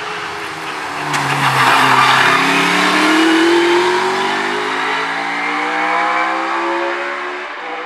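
Single-seater hill-climb racing car accelerating hard past and away up the hill. Its engine note climbs, breaks at each upshift and climbs again. It is loudest two to three seconds in and fades as the car pulls away.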